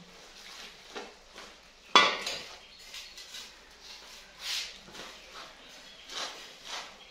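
Metal cooking pots and utensils clinking and knocking now and then, with one sharp clank about two seconds in.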